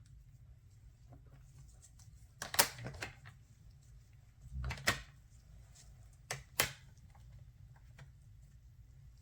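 Handling noise from a children's board book with puzzle pieces and sound buttons: four sharp clicks and taps with a few fainter ticks between them, over a low steady hum.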